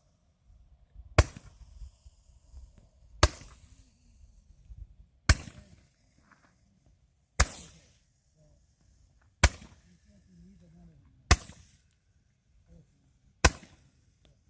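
Consumer firework firing seven sharp bangs at a steady pace, about one every two seconds, each with a short echoing tail.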